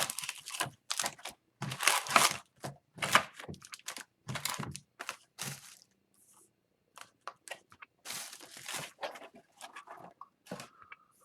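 Sealed hobby box of hockey cards being torn open by hand: wrapper and cardboard ripping and crinkling in a run of short bursts, with a brief pause a little past halfway.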